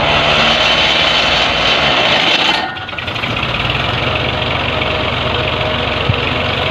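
Tractor engine running while it drives a tubewell pump through its driveshaft. About two and a half seconds in, the sound drops abruptly and settles to a steady, lower running note. A single sharp knock comes near the end.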